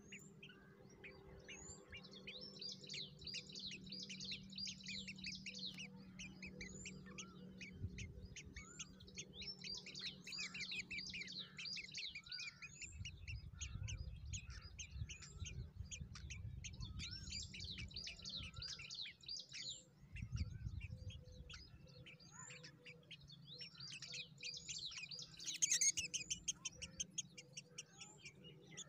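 Nestlings' begging calls: rapid, high chirps in several bouts as a parent bird feeds them at the nest, over a faint low hum.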